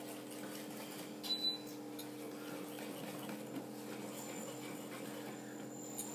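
Wire whisk slowly folding melted chocolate into egg-and-flour batter in a glass bowl: faint, soft stirring over a steady low hum, with a light tap about a second and a half in.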